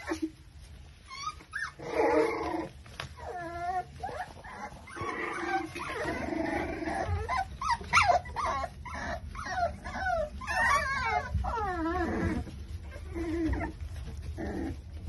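Five-week-old micro exotic bully puppies whimpering and yipping as they play-fight, a run of short, high, wavering cries one after another.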